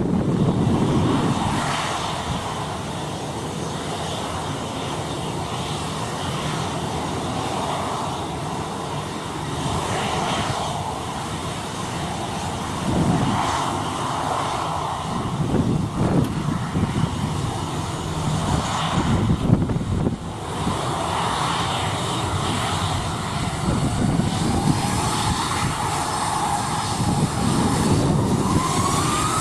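Airliner engines running, with strong wind gusting on the microphone. A whine rising in pitch comes in near the end.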